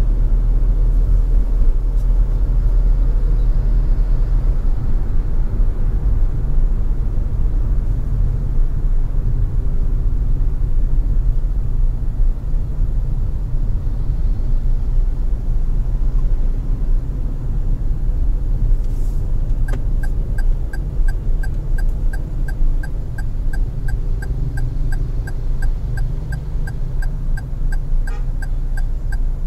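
Steady low rumble of a car being driven. About twenty seconds in, a rapid, regular ticking starts up and keeps going: the car's turn-signal indicator.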